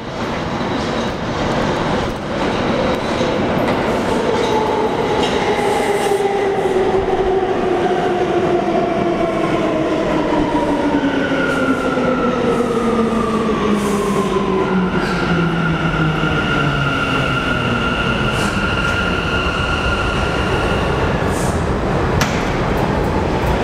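Bombardier R179 subway train pulling into a station and braking to a stop, over the rumble of wheels on rail. The whine of its AC traction motors falls steadily in pitch over about a dozen seconds. Once the train has stopped, two steady high tones hold for several seconds, and a single knock comes near the end.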